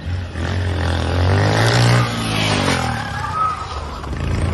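A motor vehicle engine revving, its pitch climbing for about two seconds and then dropping away, with a rougher road-noise haze after it.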